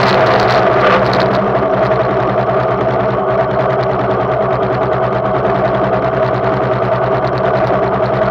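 2005 Yamaha YBR 125's single-cylinder four-stroke engine idling with a steady, fast, even beat, once the wind and road hiss die away in the first second as the bike comes to a stop.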